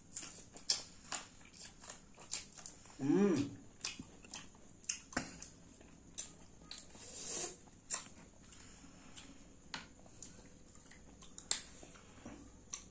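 Close-miked mukbang eating of green mussels in spicy Padang sauce: wet chewing and biting, with many sharp clicks as the mussel shells are handled and pried apart. A short vocal sound about three seconds in.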